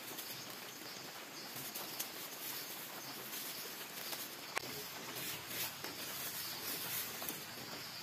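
Quiet forest ambience with a steady high insect-like buzz, and a few faint clicks and crinkles as plastic food bags are handled.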